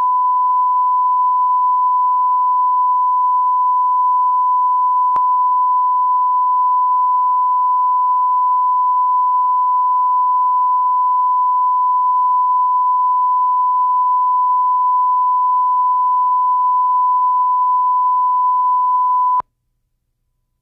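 Steady single-pitch line-up test tone, the audio reference tone recorded with colour bars at the head of a Betacam broadcast tape, used to set playback levels. A faint click sounds about five seconds in, and the tone cuts off abruptly about a second before the end.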